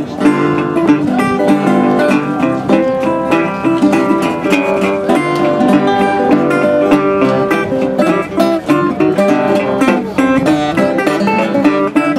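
Metal-bodied resonator guitar fingerpicked with a thumbpick, playing a quick run of plucked notes in a ragtime tune.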